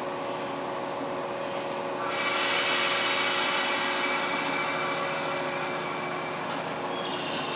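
JR West 115 series electric train starting to pull away from the platform. Over a steady hum from the train, a loud, high hiss sets in sharply about two seconds in and slowly dies away.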